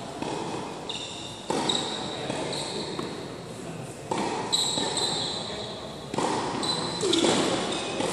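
Tennis ball struck by rackets during a rally, each hit sharp and echoing through a large indoor hall, with high squeaks of shoes on the hard court between the shots.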